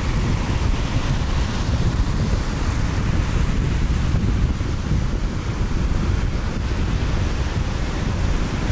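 Ocean surf breaking and washing in as a steady noise, with wind on the microphone adding a low rumble.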